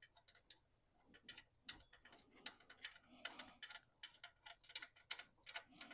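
A string of faint, irregular light clicks, coming more often toward the end, as the alternator's lower anchor bolt is turned out by hand.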